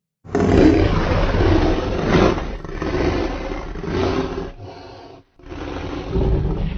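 SpaceGodzilla kaiju roar sound effect: a loud, rough monster roar that starts just after a moment of silence and dies down about four and a half seconds in. After a brief break, a second roar begins near the end.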